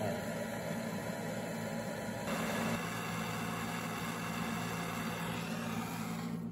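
Handheld propane torch burning with a steady hiss, preheating cast iron before welding. The hiss grows louder and brighter about two seconds in, with a low steady hum underneath.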